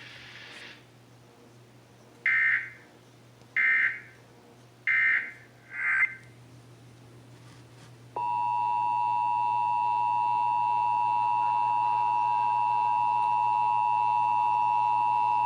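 Emergency Alert System test signals: four short bursts of screeching SAME digital data tones, then about 8 seconds in the steady two-tone EAS attention signal (853 and 960 Hz sounding together) starts and holds.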